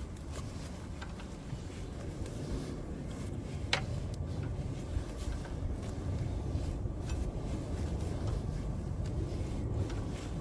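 Hand tools working on a motorcycle's swing-arm pivot bolt: scattered light metal clicks and one sharper ringing clink about four seconds in, over a steady low rumble.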